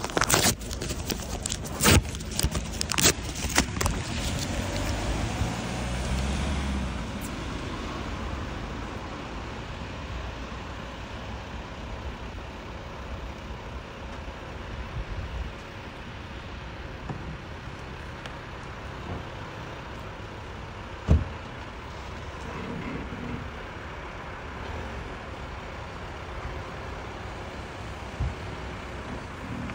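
Roadside traffic noise: a car engine runs low for the first several seconds, then a steady hum of road traffic carries on. Sharp knocks from the phone being handled come at the start, and a single knock comes about twenty seconds in.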